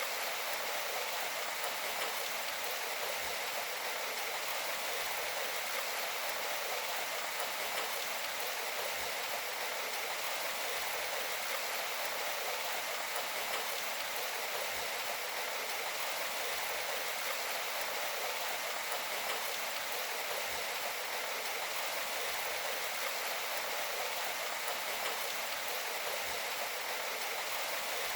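Steady rain falling, an even hiss that does not change, with no music.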